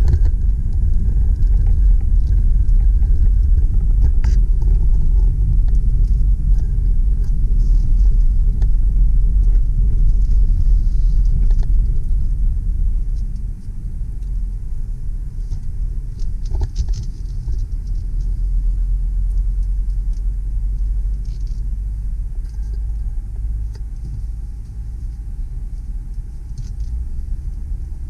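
Driving noise of a 2007 Mercedes ML320 CDI on the move, heard from inside the cabin: a steady low rumble of the 3.0-litre V6 turbo-diesel and the tyres on the road. The rumble drops in level about halfway through and carries on more quietly.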